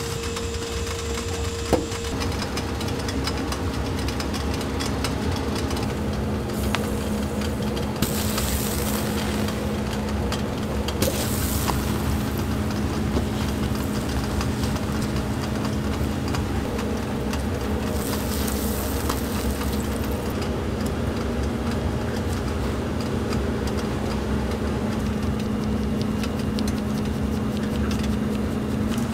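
Bread slices toasting in butter on a flat-top griddle, sizzling, over a steady low hum, with a few louder stretches of hiss.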